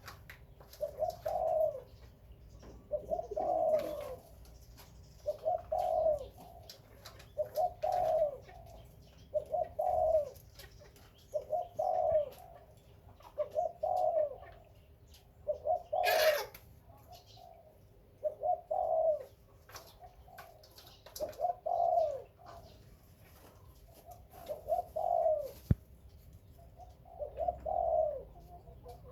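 A dove cooing the same short phrase over and over, about once every two seconds. A brief sharp noise cuts in about sixteen seconds in.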